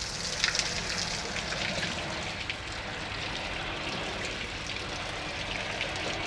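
Rinse water pouring steadily out of a tanker truck's open pipeline outlets and splashing onto the wet ground below, during the flushing of the tank's pipelines.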